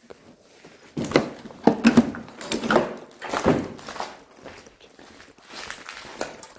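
Footsteps and irregular thuds and knocks as people move over a debris-strewn floor, with clothing rustling close to the microphone; the loudest knocks fall between about one and four seconds in.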